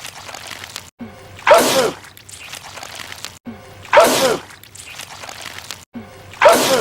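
A man sneezing hard, the same sneeze repeated three times about two and a half seconds apart. Each sneeze is sudden and loud, with a cry that drops in pitch, and the repeats are separated by abrupt cuts.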